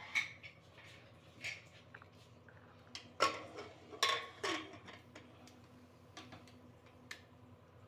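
A pressure cooker's lid being fitted into the pot and its handles closed together: a few metal clanks and scrapes, loudest about three and four seconds in, followed by a few lighter ticks.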